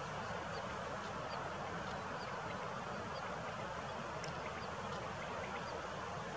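A steady rushing noise with faint, short, high chirps recurring every half second or so.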